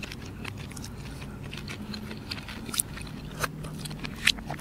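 A person chewing food with the mouth closed, close to the microphone: soft wet mouth clicks and smacks scattered through, a few sharper ones in the second half.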